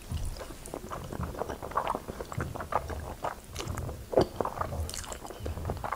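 Close-miked eating sounds of a person slurping and chewing creamy, buttery pasta noodles: a dense run of wet smacks and sucking clicks, with one louder smack about four seconds in.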